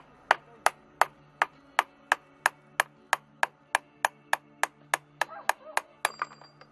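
Steel hammer blows tapping on a shaft in the feed gearbox of a 6M12P milling machine, striking hard metal with a short bright ring. About twenty even blows come at roughly three a second, quickening slightly, and stop about six seconds in.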